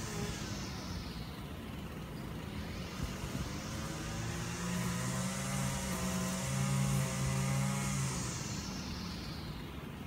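A motor vehicle's engine swelling and fading, loudest about seven seconds in, over a steady low hum.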